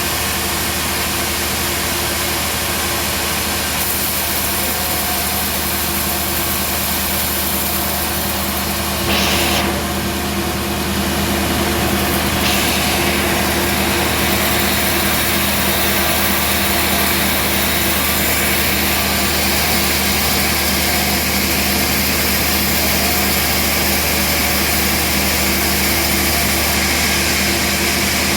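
Homemade band sawmill running steadily, its motor humming under a hiss of sawing. There is a short louder burst about nine seconds in, and the hiss grows louder from about twelve seconds on.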